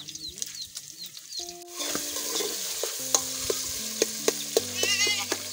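Tomatoes and onions in a metal pot start sizzling loudly in hot cooking oil about two seconds in. A wooden spoon stirs them and knocks against the pot several times. A baby chick peeps at the start and briefly again near the end.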